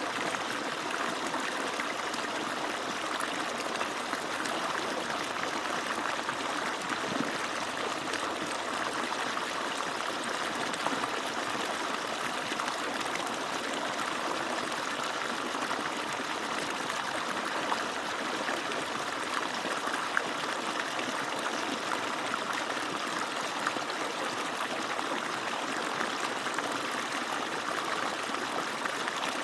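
Water pouring steadily from an agricultural water pump's outlet, a continuous even rush of falling, splashing water.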